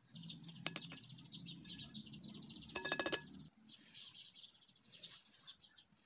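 A plastic mesh sieve of flour is shaken rapidly over a glass bowl, its mesh rasping in a fast, even rhythm. About three seconds in come a few quick knocks of the sieve against the bowl, which rings briefly. After that a fainter scraping follows as a silicone spatula starts stirring the flour into the batter.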